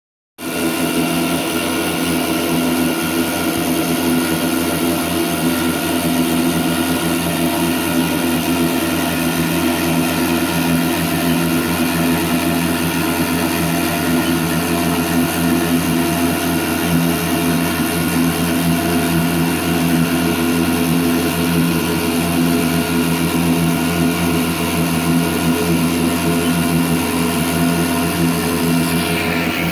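CNC milling machine running steadily while cutting a mold: a constant machine hum with several held tones, changing slightly near the end.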